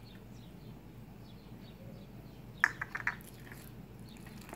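Metal masher and spoon working milk into mashed ripe plantains in a plastic bowl, mostly faint, with a quick run of about four clicks some two and a half seconds in.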